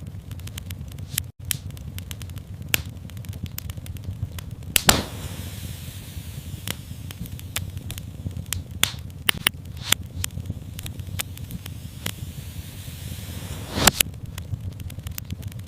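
Fireplace fire crackling and popping over a steady low rumble of flames. Two louder pops about five and fourteen seconds in, with a hiss running between them.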